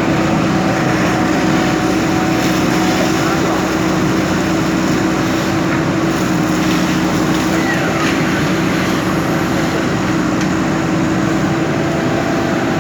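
JCB backhoe loader's diesel engine running steadily, a constant drone with a steady low hum.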